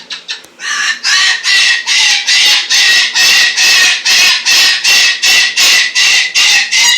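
A pet bird squawking loudly and over and over, about three harsh calls a second, after a quick run of short chirps at the start.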